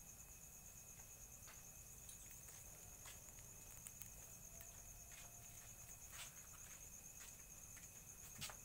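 Crickets trilling steadily at a high pitch, faint, with scattered soft clicks and a slightly louder tick near the end.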